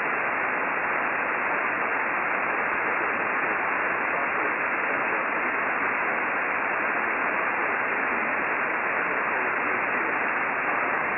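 Icom IC-9700 receiving single sideband on an empty satellite downlink: a steady hiss of static with no voice in it.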